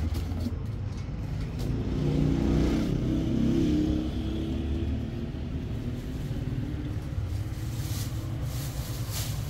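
Motor vehicle running with a steady low rumble, swelling louder for a couple of seconds about two seconds in.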